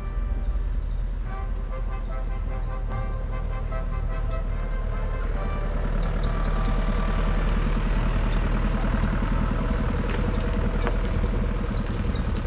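Engine of a small tourist road train running as it drives past close by, a low rumble that grows louder about halfway through.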